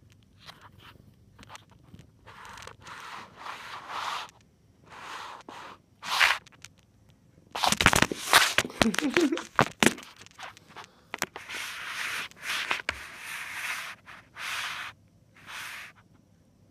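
Handling noise on the recording phone: a run of short scratchy rubbing sounds against the microphone, with a cluster of loud knocks and scrapes about halfway through as the lens is covered.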